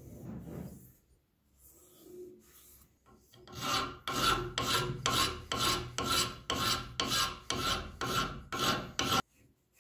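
Hand file worked back and forth over the rusty steel bar of an old screw clamp clamped in a bench vise. Softer scraping comes first, then from about three and a half seconds in come about eleven even file strokes, two a second, which stop abruptly near the end.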